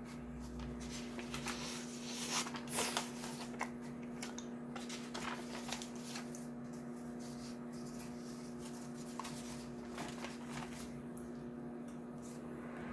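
Samsung combination microwave oven running on its oven setting: a steady hum, with scattered light clicks and rustles over it, most of them in the first few seconds.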